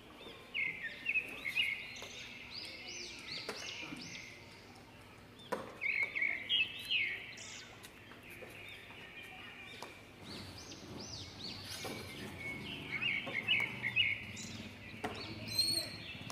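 Birds chirping in bursts of short, high calls: one cluster about a second in, another around six seconds, and a longer run around thirteen seconds, over a faint outdoor background.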